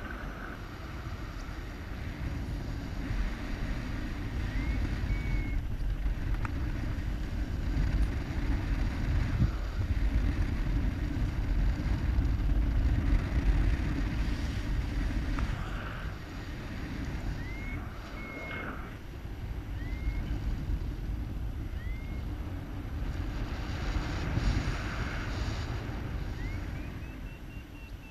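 Wind buffeting the microphone in flight: a low, uneven rumble that swells and fades, loudest in the middle. A few faint, short chirps come and go above it.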